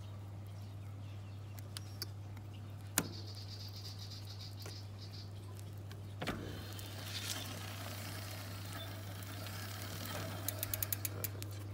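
Mountain bike chain and drivetrain being worked by hand: a few scattered sharp metallic clicks, then near the end a quick run of ticks as the new chain turns through the rear derailleur and cassette. A steady low hum lies under it all.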